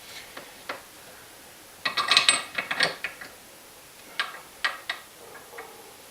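Short clicks and clattering knocks of hardware and tools being handled on a workbench: a quick cluster about two seconds in, then a few single clicks.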